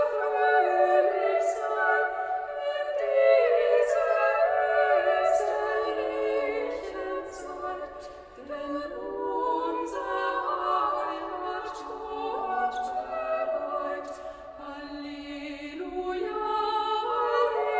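Three women's voices singing a cappella in parts, holding long notes and moving from phrase to phrase, with a short break between phrases about eight seconds in.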